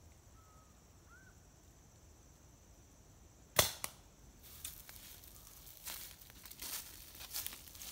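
A tranquilliser dart gun fires an anaesthetic dart with a single sharp pop about three and a half seconds in, over a faint steady insect hiss. Then dry twigs and brush crackle and snap unevenly as someone moves through the undergrowth.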